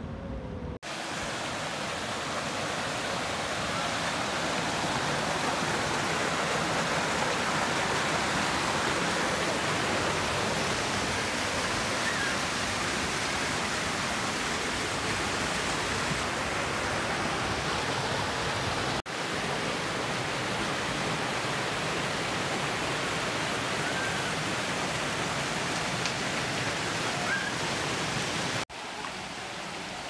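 Steady rush of flowing water over rocks, with a few faint short chirps. The rush cuts out for an instant about a second in, again just past the middle, and near the end, where shots are spliced together.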